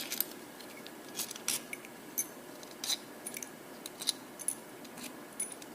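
Small steel carburetor screws clinking against each other and against metal as they are handled and set down: a string of light, irregular clicks, some with a short high ring.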